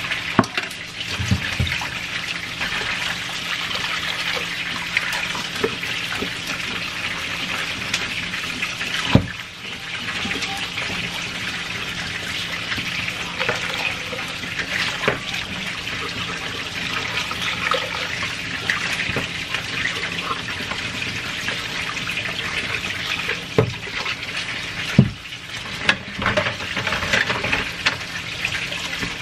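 Kitchen tap running into a stainless steel sink as dishes are rinsed by hand, water splashing over a glass jar and bowls. A few sharp knocks sound, the loudest about nine seconds in and a pair near the end.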